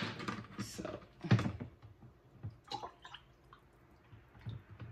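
Water poured in short bursts from a plastic gallon jug into a small glass pitcher, with a sharp knock of the jug being handled at the start.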